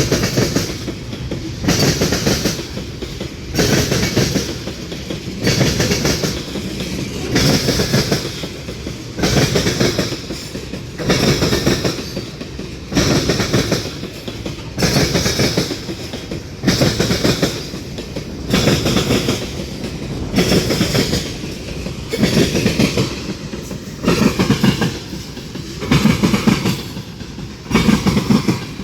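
CSX freight train rolling past, its cars' wheels clattering rhythmically over the track: a loud clack-clack about every two seconds as each car's wheel sets go by, over a steady rolling rumble.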